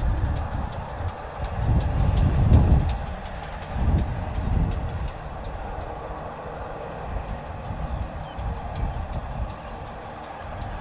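GWR pannier tank steam locomotive and its train running past at a distance: a low rumble, louder in the first few seconds, with a quick, regular light ticking from the train.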